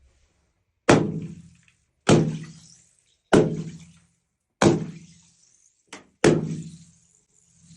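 Water-filled balloons bursting: a series of heavy thuds about a second and a quarter apart, each dying away, with dead silence between. Near the end one sound swells up and cuts off sharply.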